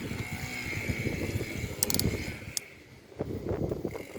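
Wind rumbling on the microphone, with sharp clicks and knocks of a metal drill bit being handled and fitted into a drill's chuck, and a faint steady whine in the first half.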